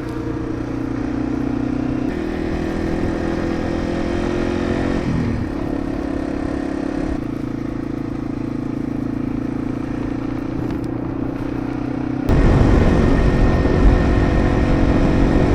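Yamaha TW200's single-cylinder four-stroke engine running as the motorcycle rides along, its note shifting a few times. About 12 seconds in, a louder rushing noise comes in over the engine.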